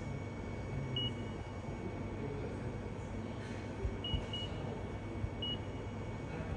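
Touchscreen of a Japanese railway ticket machine beeping as its on-screen buttons and keyboard keys are pressed: four short, high beeps, two of them close together about four seconds in, over a steady background hum.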